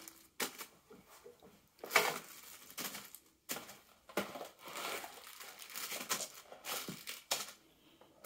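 Small plastic bags of SATA cables and screws crinkling and rustling as they are handled and laid down, in short irregular rustles with a few sharper crackles.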